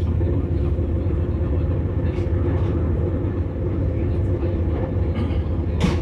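CRH1A electric multiple unit running at steady speed, heard inside the passenger car: a steady low rumble with a level hum from the traction motors. A short sharp click comes near the end.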